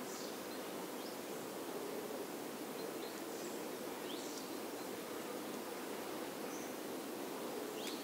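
Steady outdoor background noise with a few faint, scattered high bird chirps.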